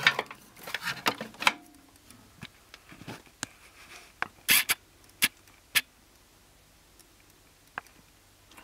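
Scattered sharp clicks and light taps: a cluster in the first second and a half, three or four loud single clicks around the middle, and a faint one near the end.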